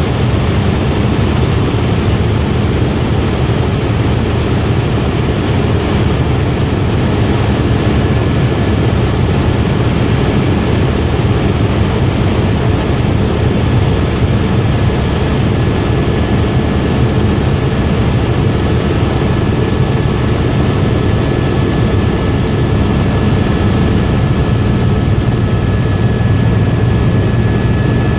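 Helicopter in steady cruise, heard from inside the cabin: a loud, unbroken drone of rotor and engine, with a faint high whine coming in over the second half.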